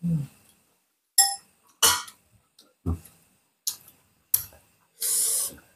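Cutlery and dishes clinking while eating: about six separate clicks and knocks of utensils against bowls, one about a second in with a short ring, then a half-second hissing noise near the end.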